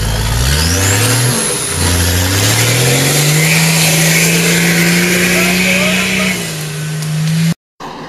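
Off-road competition truck's engine revving hard under load: the revs climb, dip once, then climb again and hold high for several seconds, easing slightly near the end before the sound cuts off abruptly.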